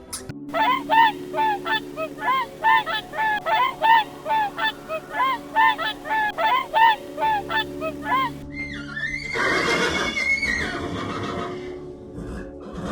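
An animal giving a rapid series of short, honking calls, about three a second, over background music; the calls stop about two-thirds of the way in and give way to a noisier, rougher sound.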